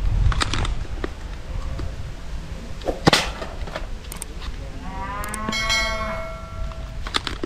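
A cow moos once, about five seconds in: a single call that rises and is then held for over a second. Under it runs a low rumble, with a few sharp clicks.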